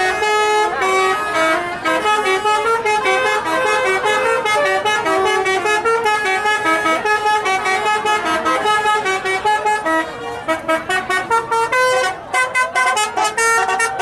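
Bus telolet horn: a set of Basuri multi-tone air horns playing a fast melody of short, steady notes. From about ten seconds in it breaks into rapid stuttering blasts.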